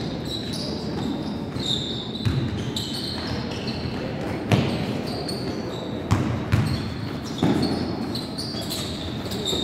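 Sneakers squeaking on a gym floor in short high chirps as players run and cut, with a basketball bouncing on the floor several times at irregular intervals.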